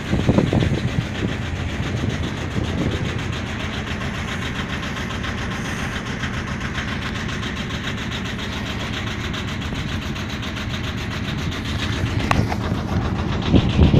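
Ferry boat's engine running steadily. A short handling knock on the camera comes near the end.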